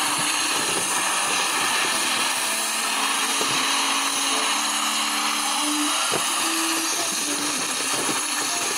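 Steady, loud rushing whir of a small electric motor, with a few light knocks.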